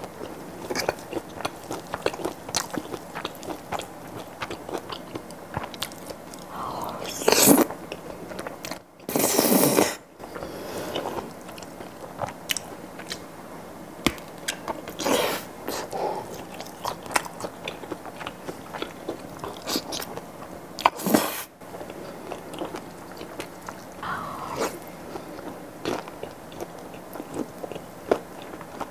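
Close-up mouth sounds of eating grilled kielbasa sausage and cream pasta: chewing with many wet clicks, and a few louder bites or slurps.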